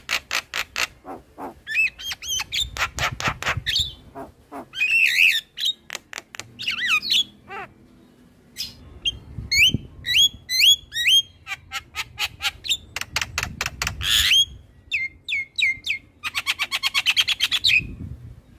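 Javan myna singing a varied song: fast runs of clicking notes, short rising whistles and harsh squawks, ending in a quick rattling trill.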